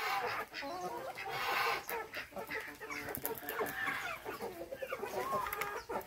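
A flock of chickens clucking, with many short calls overlapping.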